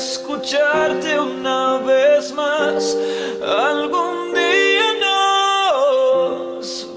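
Slow pop ballad: a singer holds long notes that slide and waver over sustained chords, with guitar underneath.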